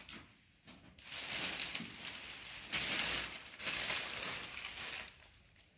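Clear plastic wrap crinkling and rustling as it is pulled off a new flat-screen TV, in several bursts, with a short lull just after the start and again near the end.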